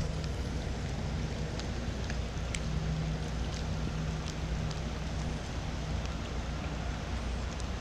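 Steady rain falling, with scattered separate drop ticks, over a faint low hum that comes and goes.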